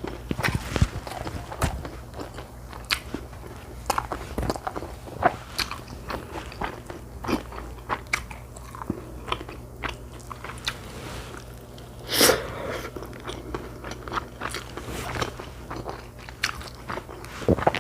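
Close-miked chewing and biting of food: irregular sharp crunches and mouth clicks, with one louder bite about twelve seconds in.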